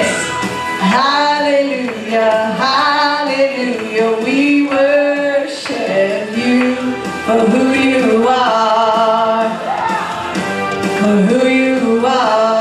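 Worship song: a woman sings long held, wavering notes into a handheld microphone, with the church band accompanying.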